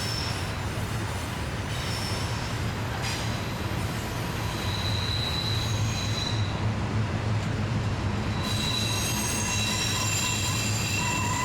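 Freight cars of a long intermodal train rolling around a tight mountain curve, with a steady low rumble and high-pitched wheel flange squeal. The squeal comes and goes, then several squealing tones sound together from about two-thirds of the way in.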